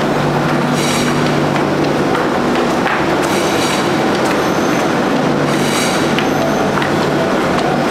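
Loud, steady din of factory machinery with a low hum, with a brief high-pitched screech rising over it three times.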